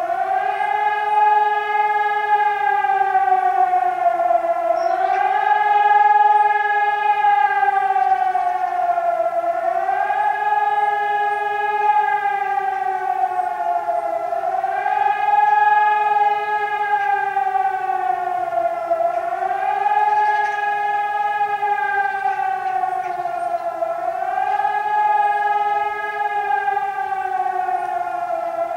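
Civil-defence warning siren on its monthly test, a loud wail that starts suddenly and swells up and down in pitch about every five seconds.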